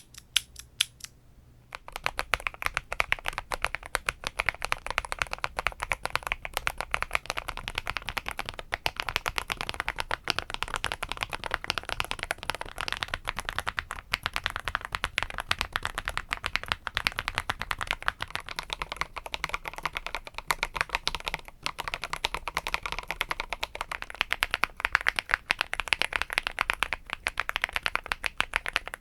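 Fast, continuous typing on a mechanical keyboard fitted with Haimu Sea Salt switches: dense key clicks and clacks, first on a plastic-housing keyboard, then on an aluminum-housing keyboard near the end. A few separate key presses sound in the first second or so before the steady typing starts.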